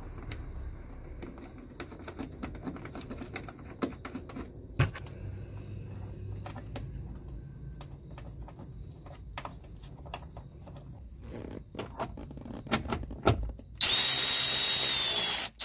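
Scattered light clicks and rattles of parts being handled, then near the end a cordless power driver runs for about two seconds with a high whine, driving in a 7 mm bolt that holds the speaker housing in a plastic door panel.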